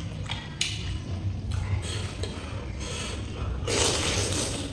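Close-miked eating sounds of turtle meat: irregular wet chewing and smacking, with a louder wet sucking stretch near the end as meat is sucked off the fingers.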